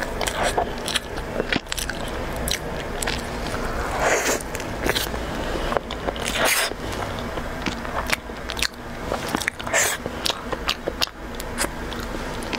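Close-miked eating of a soft cream-filled pastry: bites, chewing and wet mouth and lip smacks in a quick irregular run, with a few louder, longer bites.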